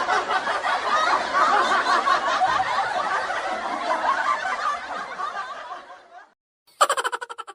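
Laughter sound effect: people snickering and chuckling together, fading out about six seconds in. Near the end, a short buzzing sound of rapid pulses starts and quickly dies away.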